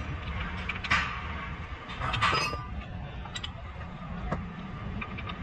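Metal tools and parts being handled during suspension work: two sharp metallic knocks about one and two seconds in, then a few lighter clicks, over a steady low hum.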